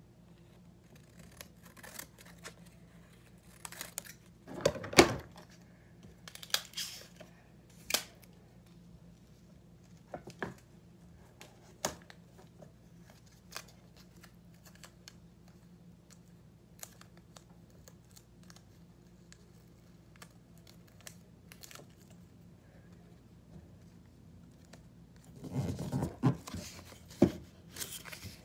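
Scissors snipping paper, then scattered crinkling and tearing of paper and tape as strips are fitted onto a cardboard ledge. The loudest handling noise comes about five seconds in, with a denser flurry near the end.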